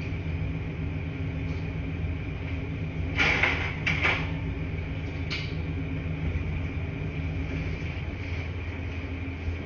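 Laundry-room washing machines running with a steady low hum and a faint high whine. Two brief, louder noisy sounds come about three and four seconds in, with a faint click a little after five seconds.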